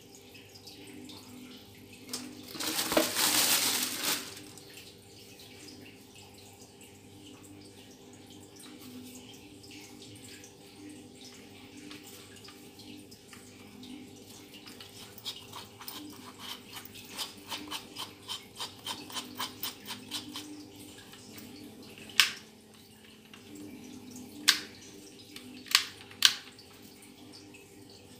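Handling noise while a small cordless drill and its bits are unpacked. A brief loud rustle of plastic wrapping comes about three seconds in. Later there is a run of light rapid clicks, then a few sharp single clicks of hard plastic, over a faint steady hum.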